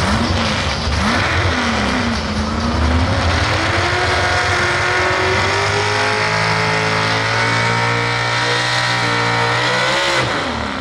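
Pro stock 4x4 pulling truck's engine blipped a few times, then held at high revs under load for about eight seconds, its pitch climbing slowly as it pulls down the track. The throttle comes off with a quick dip in pitch near the end.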